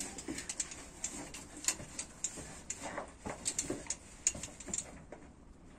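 Faint, irregular clicks, knocks and scrapes from a man rappelling on a rope down a rock well shaft, thinning out near the end.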